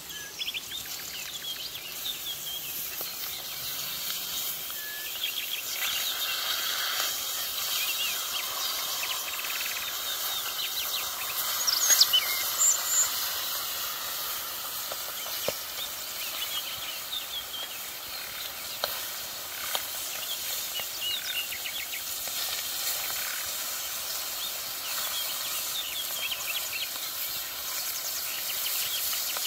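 Fish pieces sizzling in oil in a shallow iron pan over a wood fire, a steady hiss, with a metal spatula clicking and scraping against the pan as the pieces are turned, loudest about twelve seconds in. Birds chirp now and then.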